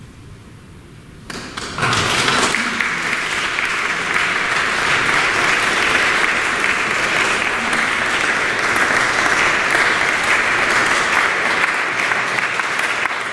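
Audience applauding, breaking out after a brief hush about a second and a half in, then steady clapping.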